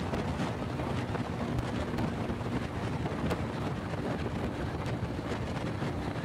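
Honda Pop 100 motorcycle's small single-cylinder engine running steadily at cruising speed, heard under heavy wind noise on the microphone, with a few light ticks.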